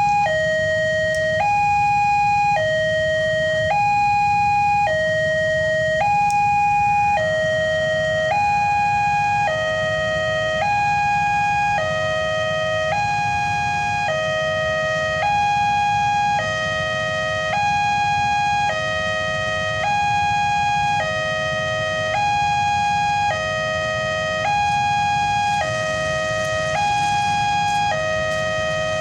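Electronic warning siren of a railway level crossing sounding a steady two-tone high–low alternation, switching about every second. The tone pattern shifts slightly about seven seconds in.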